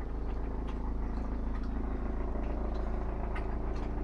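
Air ambulance helicopter hovering, a steady low drone of its rotor and engine.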